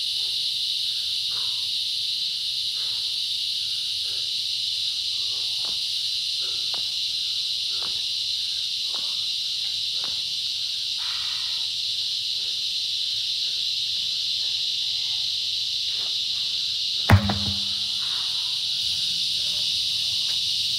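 A steady, high insect drone runs throughout. About 17 seconds in, a heavy truck tire lands flat on the ground after being flipped, making one loud thud.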